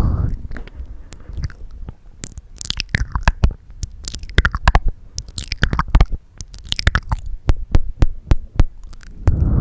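Close-miked ASMR mouth sounds: a dense run of sharp wet tongue clicks and lip smacks. A loud breath rushing onto the microphone fades out at the start, and another begins near the end.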